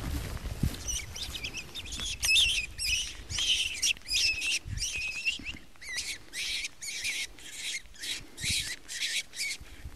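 Wild rabbit screaming in distress, a run of short high-pitched squeals about two a second, as it is held in a lurcher's jaws.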